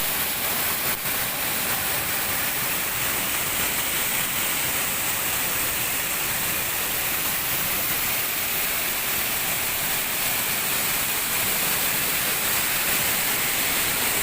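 Steady rush of a waterfall: a constant, even hiss of falling water.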